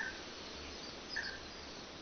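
Songbirds chirping in short notes, a few times, over a steady rushing background of falling water.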